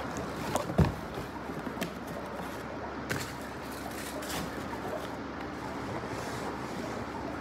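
Cardboard shipping box handled and set down among other boxes, with one dull thump about a second in, then a few light taps and scuffs of cardboard.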